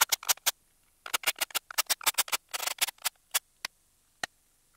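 A ratchet clicking in quick runs of sharp ticks with short pauses between them, as the camshaft bearing cap fasteners on a BMW M54 cylinder head are loosened.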